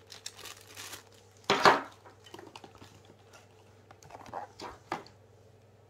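Cardboard packaging and plastic wrapping being handled and rustled in short bursts, the loudest about one and a half seconds in and softer ones near the end, over a faint steady hum.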